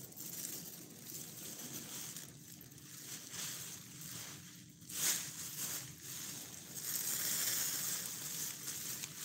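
Clear plastic bag or sheeting rustling and crinkling as it is handled and folded, louder about halfway through and over the last couple of seconds.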